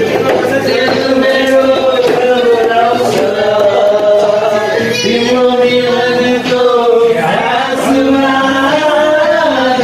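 Several voices singing together, holding long notes.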